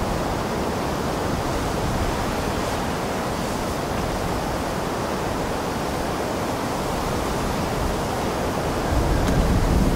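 Steady wind noise with no distinct events. A stronger, deeper gust buffets the microphone near the end.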